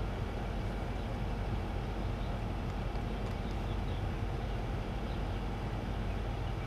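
Steady low rumble of vehicle engines idling, running evenly with no change.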